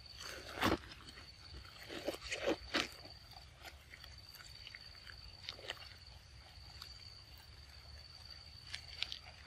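A young macaque biting into and chewing a ripe mango: short, sharp bite sounds about a second in, several more between two and three seconds, one midway and two near the end. Under it runs a steady high insect drone.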